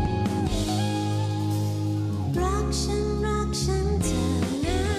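A female singer sings a pop song live into a microphone, holding long notes over a backing of guitar and drums.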